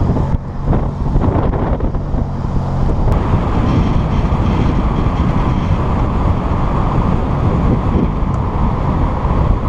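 Minivan driving along a paved road: steady engine hum for about three seconds, then, after a cut, a dense rumble of road and wind noise as it moves along.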